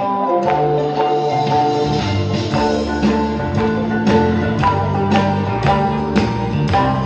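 Instrumental music with a steady beat, melodic notes over a bass line that comes in about a second in; no singing.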